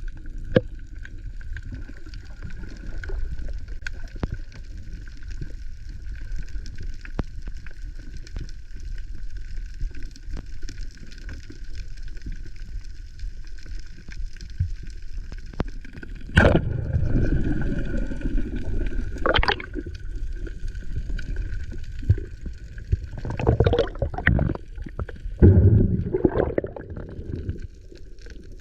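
Underwater sound picked up by a GoPro in its housing while free diving: a low, murky water rush with a faint steady high tone. Sharp knocks and louder surges of water come in the second half.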